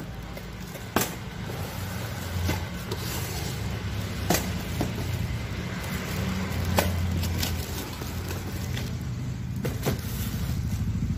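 Plastic-bagged plastic kitchen scales being handled, with a few sharp clicks and knocks over a steady low engine-like rumble.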